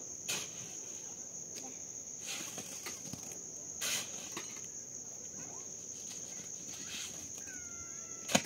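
Hoe scraping through wet concrete mix in a steel wheelbarrow several times, with a sharp knock near the end, over a steady high insect trill.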